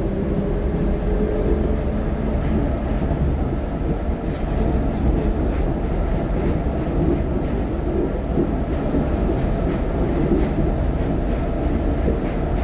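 Nippori-Toneri Liner rubber-tyred guideway train under way, a steady rumble of tyres and running gear heard from inside the car, with faint wavering tones from the drive.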